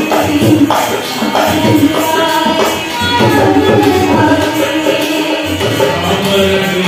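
Rajasthani folk music for a Ghoomar dance: a hand drum keeps a steady beat under a melody line.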